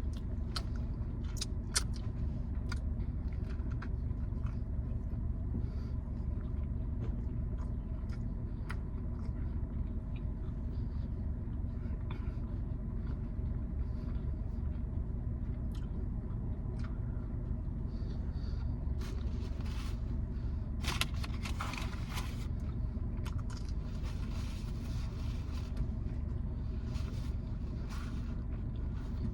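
Steady low rumble of a car engine idling, heard inside the cabin, with scattered small clicks and a few brief rustles about 19 to 22 seconds in.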